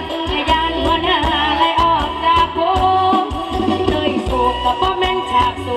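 Live Thai mor lam band music played loud through a stage sound system, with a woman singing a wavering melody over a steady drum beat and heavy bass.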